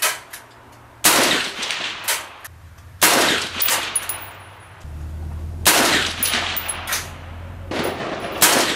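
AR-15 rifle fired four times in single shots, about two to three seconds apart, each shot trailing off in an echo.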